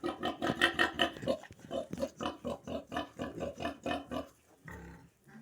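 Pigs grunting in a fast run of short grunts, several a second, for about four seconds, then one fainter grunt near the end.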